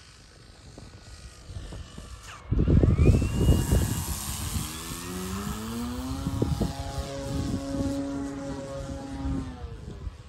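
Electric brushless motor and 16x7 propeller of an RC aerobatic plane. It passes close about two and a half seconds in with a loud rush and a quick drop in pitch, then its whine climbs in pitch as the throttle comes up, holds, and cuts off near the end.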